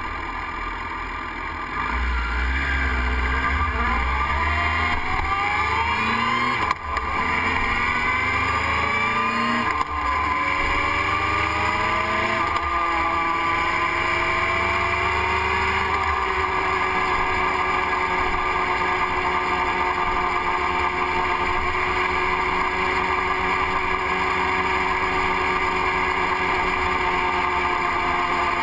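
Motorcycle engine pulling away from a stop, rising in pitch as it accelerates and breaking off briefly at gear changes about seven and ten seconds in. From about halfway through it runs at a steady cruising pitch, with a low wind rumble over the microphone.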